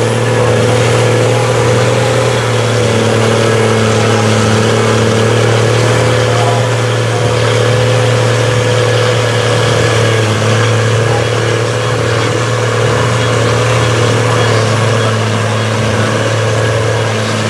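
Built Cummins inline-six diesel in a Dodge Ram mud truck on eight tractor tires, running hard at steady high revs while the tires churn through deep mud and water. The engine note stays loud and even, with no clear rise or fall.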